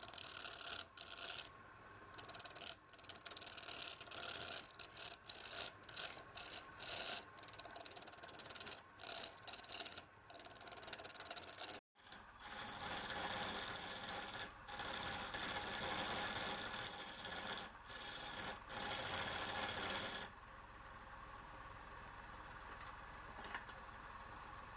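A tool scraping and rasping against wood in many short, uneven strokes. After a sudden cut about halfway through, the scraping runs more steadily, then gives way to a quieter, even running sound for the last few seconds.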